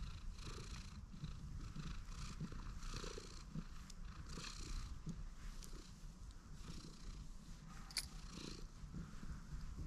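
Cat purring steadily at close range while being stroked, the purr swelling and fading in a rhythm of roughly two waves a second. A single sharp click near the end.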